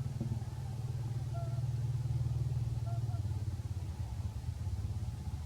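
A steady low motor rumble, like an idling engine, with a few faint short high-pitched chirps over it.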